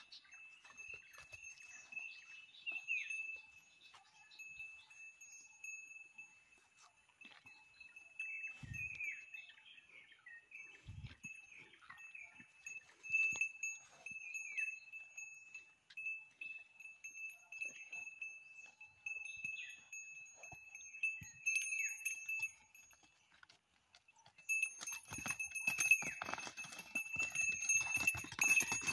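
Calves' neck bells jingling now and then, breaking into a busy jangling with scuffling hooves over the last few seconds as the two calves run about. A steady high-pitched drone runs underneath throughout.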